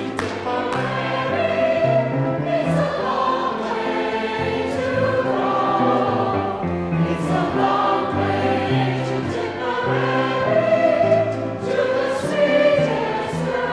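A mixed choir of men's and women's voices singing a song together, holding notes and moving in pitch together.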